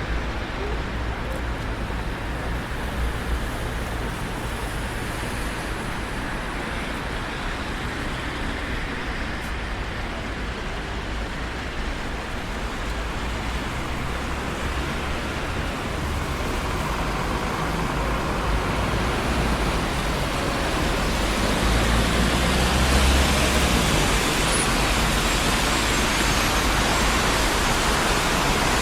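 Road traffic on a busy city street: a steady wash of tyre and engine noise over a low rumble. It grows louder through the second half, loudest a little after two-thirds of the way in.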